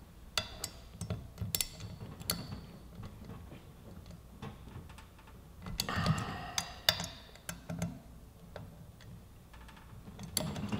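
Hand ratchet with a hex bit clicking in short runs and clinking on steel as the brake rotor's mounting bolts are tightened one after another. Sharp separate ticks come throughout, with a busier stretch of clicks and handling noise about six seconds in.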